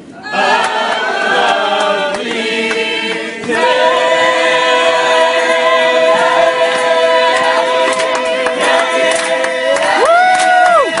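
A group of voices singing a cappella, holding one long chord together for several seconds, then rising to a higher note near the end.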